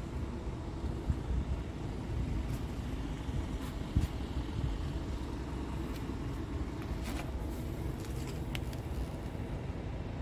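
A heavy truck's diesel engine idling: a steady low rumble, with a few faint clicks and taps on top.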